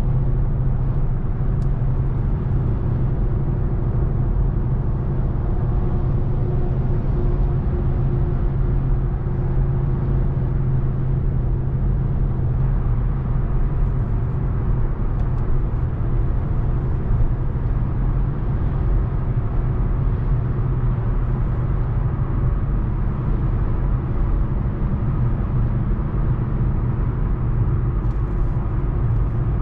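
Mercedes-Benz GLA250's turbocharged 2.0-litre four-cylinder petrol engine and tyres while driving at a steady speed: an even low engine hum over road rumble, with no revving or gear changes standing out.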